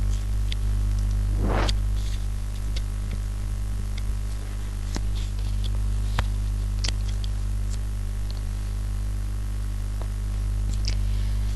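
Steady electrical mains hum in the recording, with a faint hiss and a few short, faint clicks scattered through it.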